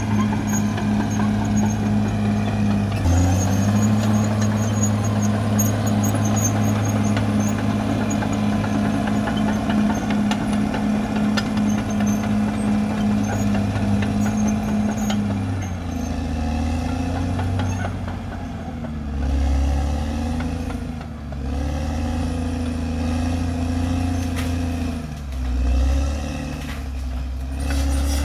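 Caterpillar D6R XL bulldozer's diesel engine running at steady high revs. About halfway through, the revs drop and then waver up and down, surging louder twice.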